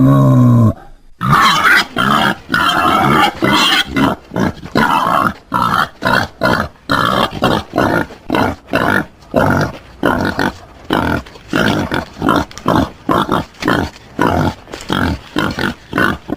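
Wild boar calling. A long pitched call ends just after the start. After a short pause comes a fast, steady series of short calls, about two a second, that runs on to the end.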